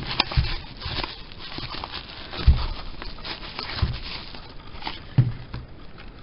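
Handling noise while unboxing: a light rustle of packaging with a few soft thumps as items are moved and set down.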